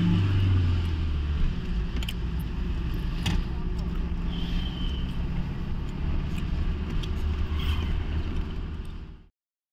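Steady low rumble of a motor vehicle on the move, engine and road noise with a few light clicks and rattles, stopping suddenly about nine seconds in.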